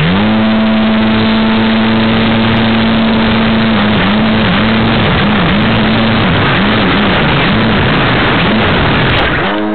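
RC model plane's propeller motor, very loud, coming up to full speed at the start and running steadily, then its pitch dipping and recovering over and over, about twice a second, before it cuts off near the end.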